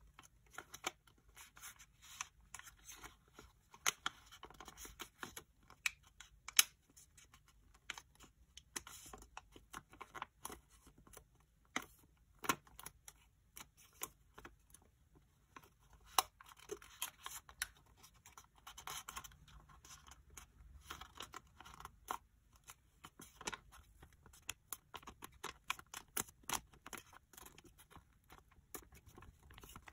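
A sheet of 15 cm origami paper being handled and folded by hand: rustling and crinkling, with many short sharp crackles as the paper flexes and creases.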